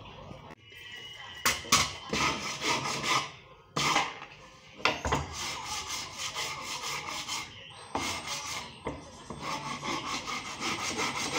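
Wood being hand-sanded: quick back-and-forth scratchy rubbing strokes of abrasive on pine, in several bouts with short pauses between them.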